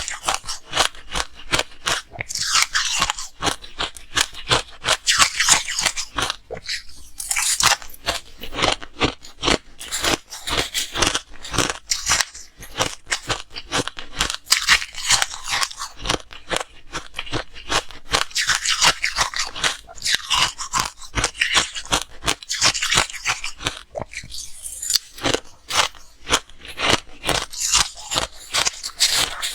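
Ice being bitten and chewed close to the microphone: rapid crackling crunches, with louder bites every two to three seconds.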